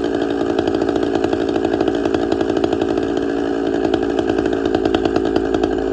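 Two-stroke chainsaw engine running steadily at an even speed while its carburetor mixture is being tuned.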